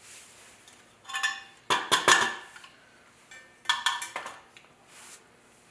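Metal parts of a gas water heater's burner assembly clinking and clattering as they are handled, in three short bursts with a brief metallic ring; the loudest comes about two seconds in.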